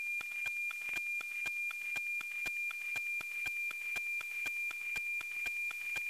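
NOAA-19 weather satellite's APT image signal, picked up by an RTL-SDR and demodulated to audio: a steady high tone with an even ticking of about four clicks a second, the sync pulses that mark each image line. The signal is clear and strong.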